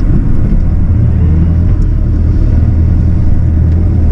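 Bobcat E42 mini excavator's diesel engine running steadily at working speed, a loud, even low hum.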